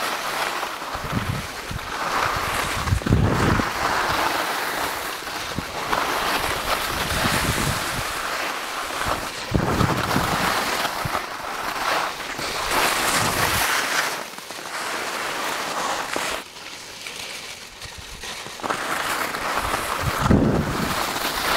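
Wind rushing and buffeting on the microphone of a moving skier, mixed with the hiss and scrape of skis over choppy snow. The noise comes in uneven gusts and eases for a couple of seconds about three-quarters of the way through.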